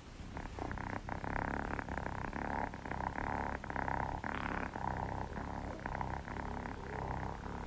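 Kitten purring steadily, a fast even pulsing that starts about half a second in.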